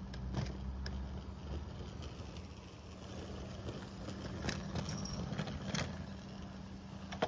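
Garden-railway model locomotive running along the track with a steady motor hum, and a few sharp clicks as it moves over the rails and pointwork.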